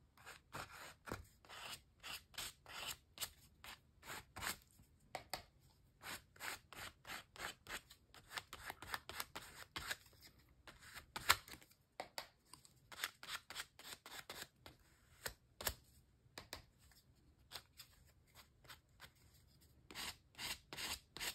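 Silver acrylic paint being worked through a stencil onto a Bible page: a run of short, soft, scratchy rubbing strokes, about two or three a second, with brief pauses between runs.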